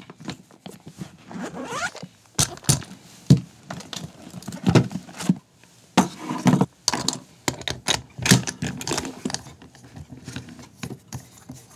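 A tool bag zipped open and rummaged through, then soldering gear set down on a tabletop: a soldering station, a spool of solder, an iron holder and a small bench vise. Many short knocks, clunks and scrapes.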